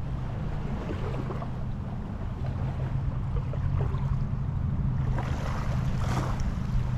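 Wind rumbling on the microphone over surf at the shore, with the washing noise swelling about five seconds in.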